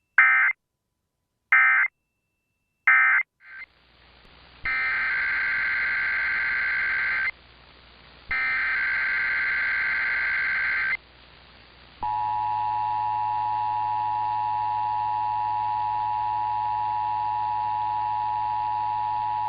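Emergency Alert System data signals: three short warbling SAME data bursts (the end-of-message code), then two longer SAME data bursts of the next alert's header. About twelve seconds in, the steady two-tone EAS attention signal of 853 and 960 Hz begins.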